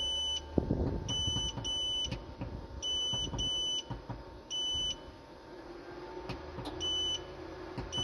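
Solar inverter's control panel giving a short, high beep with each button press: seven beeps at uneven spacing as the charging-current setting is stepped down to zero. Faint clicks of the push buttons can be heard between the beeps.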